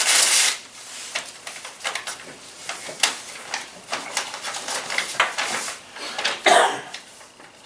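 Paper rustling and crackling as a sealed bid envelope is opened and the bid papers are pulled out and handled, in irregular bursts with a louder rustle at the start and another about six and a half seconds in.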